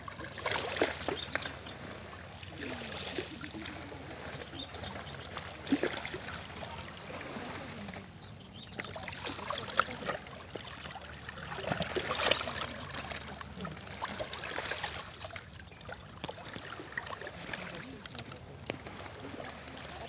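Small sea waves lapping and washing over a pebble shore, the wash swelling and fading every few seconds.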